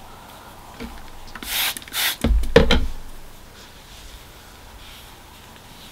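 Straight razor stroked across a wet whetstone: two short scraping strokes about one and a half and two seconds in, then a louder scrape with a low knock. Faint rubbing follows as the blade is wiped with a cloth.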